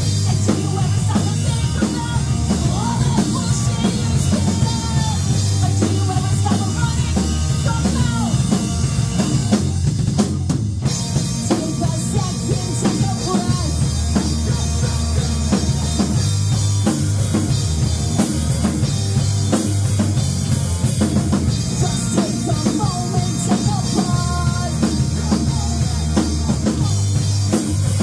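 Live rock band playing loud through a small venue's PA: electric guitars and a driving drum kit. About ten and a half seconds in, the cymbals and upper range drop out for a moment before the full band comes back in.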